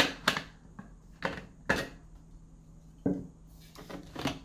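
Packing tape being peeled off the plastic lid of a food chopper while the lid is handled: a string of short, sharp rips and knocks, about seven in all, with brief pauses between them.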